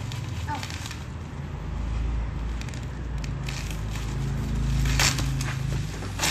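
Plastic bubble wrap rustling and crinkling as it is pulled off a box and bunched up by hand, with a few sharper crackles, the loudest about five seconds in.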